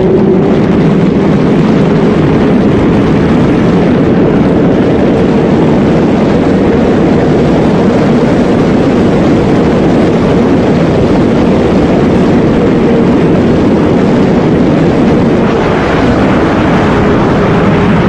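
Suzuki superbike's inline-four engine held at high revs near top speed, with heavy wind rush over the fairing; it eases off slightly near the end.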